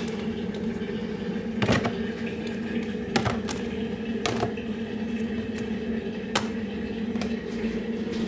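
A steady low mechanical hum, with a few sharp knocks and clicks over it, the loudest about a second and a half and three seconds in.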